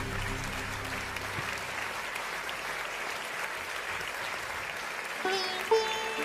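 Crowd applauding steadily. Under it, background music: a held chord fading out in the first second or so, then plucked-string notes starting about five seconds in.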